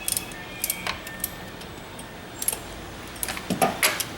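Metal hand tools and small metal parts clinking and rattling against each other during work on the engine: a few short clinks, then a louder cluster of clanks near the end.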